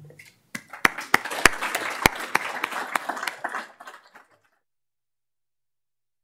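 Applause from a small audience: a dense patter of hand claps with a few loud single claps close to the microphone, dying away after about four seconds.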